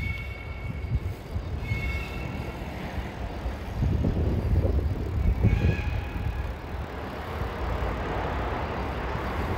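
Outdoor street ambience: wind gusting on the phone microphone over traffic noise, with a few brief high tones. A vehicle's hiss builds near the end.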